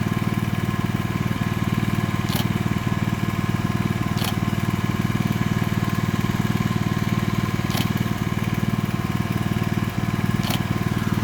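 A small engine running steadily at an even speed, low and constant, with a few brief sharp sounds every two to three seconds.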